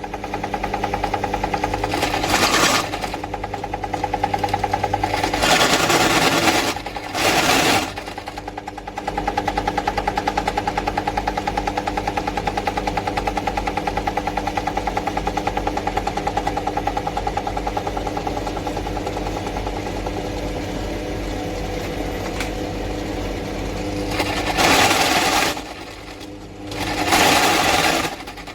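Scheppach DP16SL bench drill press running: a steady motor hum with a fast, even flutter. Several short, louder bursts of harsher noise come in the first eight seconds and twice more near the end.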